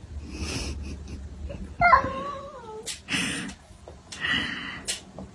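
A cat giving one drawn-out meow that wavers and falls in pitch about two seconds in, between short rustling noises.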